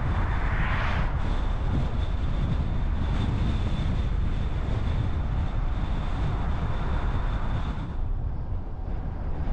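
Car driving: steady low road and engine rumble with tyre noise, and a thin, steady high tone from about a second in until near the end.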